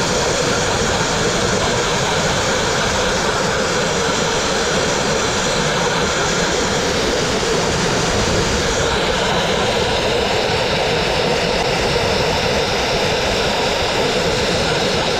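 Dustless blasting nozzle spraying compressed air, water and fine crushed-glass abrasive against brick, a steady loud hiss as it strips cement-backed masonry paint off the wall. Its tone shifts slightly about nine seconds in.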